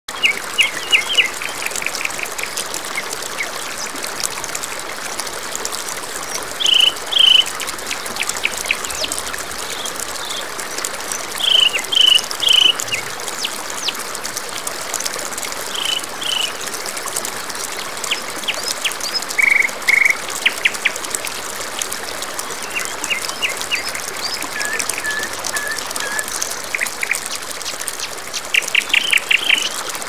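Steady rush of a waterfall with songbirds calling over it; the bird notes are the loudest sounds. Quick trills come near the start and near the end, with short repeated two- and three-note phrases in between.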